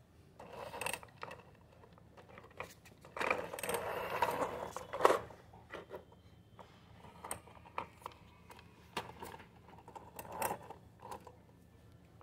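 A cloth rubbing over a plastic toy car, with the toy's wheels and body scraping and clicking on a concrete floor; the rubbing is densest for a couple of seconds about three seconds in, otherwise scattered small scrapes and clicks.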